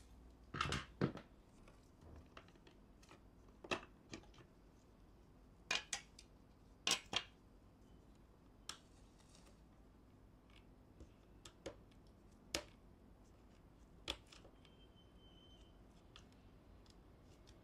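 Scattered sharp clicks and taps of hard plastic toner-cartridge parts and a small metal tool being handled, about a dozen spread out, the loudest pair about a second in.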